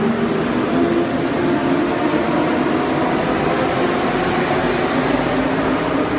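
A steady, loud mechanical rumble and hiss with a hum that wavers in pitch.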